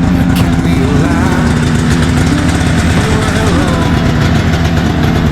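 Snowmobile engine running steadily, its pitch shifting up and down a little as it is revved.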